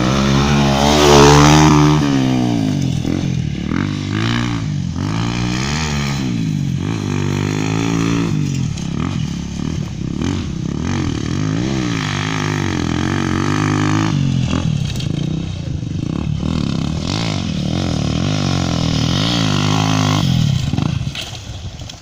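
Motocross bike with a Honda Tornado 250cc four-stroke single-cylinder engine being ridden, the engine revving up and falling back again and again as the throttle opens and closes. It is loudest about a second in and drops away near the end.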